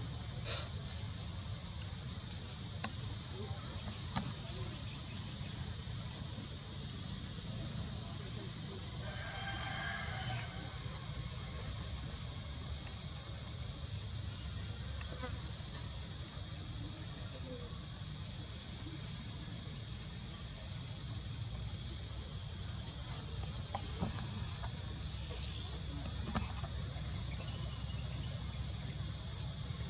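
Steady, unbroken high-pitched insect drone, with a low steady rumble underneath.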